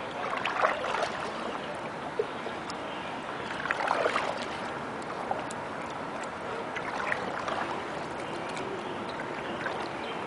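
Water swishing and splashing against a small boat as it moves along, swelling louder three times, about three seconds apart.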